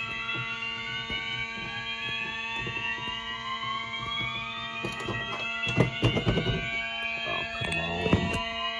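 Fire alarm system sounding after its manual pull station has been pulled: steady alarm tones with several tones slowly rising in pitch over them. A few sharp knocks come about six and eight seconds in.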